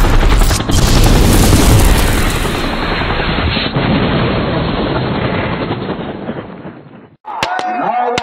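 Logo-intro sound effect: a deep boom with a dense rushing rumble that slowly fades away over about seven seconds. Near the end it cuts off and the race ground's crowd noise comes in, with a few sharp knocks.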